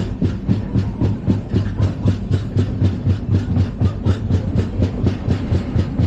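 LHB passenger coach running on the rails, its wheels clattering over rail joints in a fast, even rhythm of several clicks a second over a steady low rumble.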